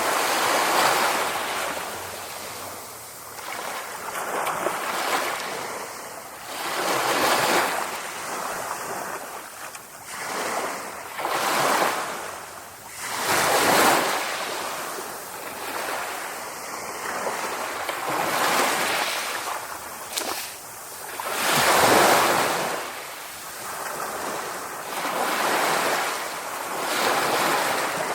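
Ocean waves breaking and washing up on a shore, swelling and falling back in repeated surges every few seconds.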